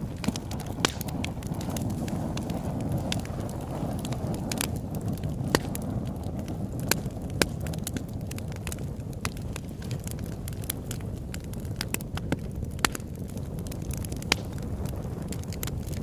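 Campfire burning: wood crackling and popping in irregular sharp snaps, a few much louder than the rest, over a steady low rush of the flames.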